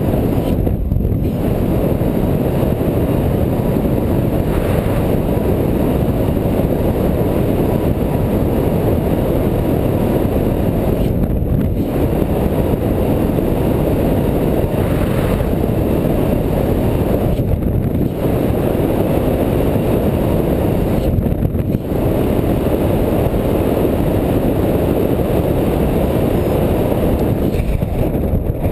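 Steady, loud wind noise from airflow buffeting the camera microphone during paraglider flight.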